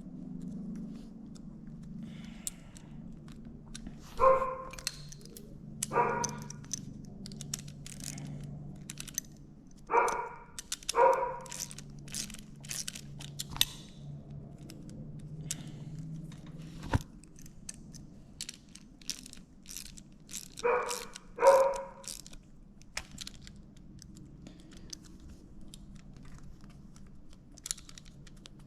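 A dog barking: six short barks in three pairs, with small clicks and taps in between, the kind made when bicycle parts and tools are handled.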